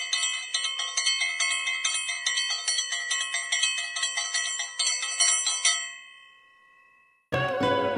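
A Hindu temple bell rung over and over, about three strikes a second, then left to ring out and fade about six seconds in. Guitar music cuts in near the end.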